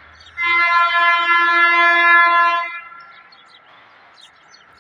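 A vehicle horn sounds one long, steady blast of about two seconds, starting about half a second in and then stopping.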